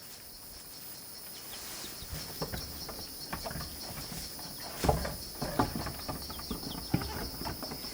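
Insects chirring steadily and high-pitched, with irregular knocks, clatter and rustling from about two seconds in, the loudest about five and seven seconds in.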